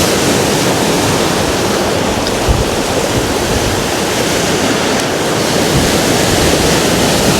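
Sea surf washing against rocks, a steady loud rushing noise with wind on top; a brief low thump about two and a half seconds in.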